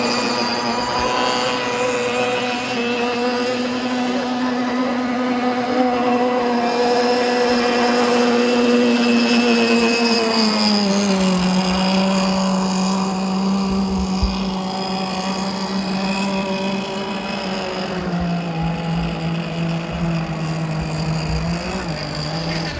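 CMB 26cc two-stroke petrol engine of a radio-controlled racing boat running at high revs through its tuned exhaust, a steady high buzzing note. About ten seconds in the note glides down and then holds at a lower pitch, dipping once more near the end.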